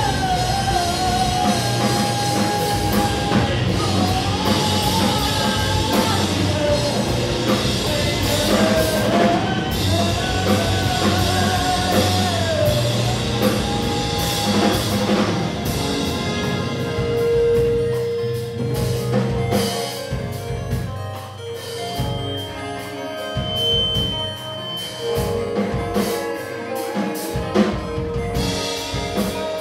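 Live post-hardcore band playing: a sung vocal line over guitars, bass and drum kit. About halfway through the voice drops out and the band plays on with held notes and drums.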